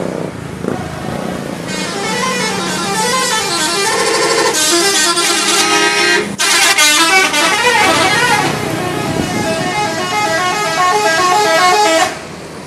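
Indonesian bus 'telolet' horn: a multi-tone horn playing quick melodic runs of stepping notes for about ten seconds, with a brief break midway, then cutting off suddenly near the end.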